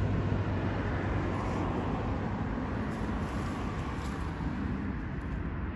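Steady outdoor city background: a continuous hum of road traffic, with no single event standing out.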